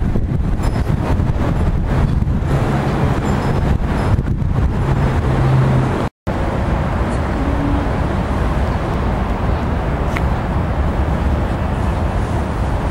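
Steady outdoor background noise, mostly a low rumble, cut off for an instant about six seconds in.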